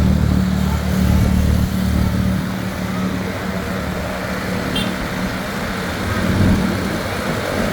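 Bus engine running amid road traffic: a steady low drone, with a heavier rumble for the first two seconds or so that then eases.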